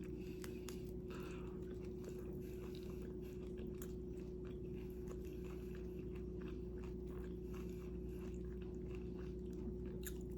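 Close-miked chewing of a turkey wrap, soft wet clicks and small crunches scattered irregularly, over a steady low hum.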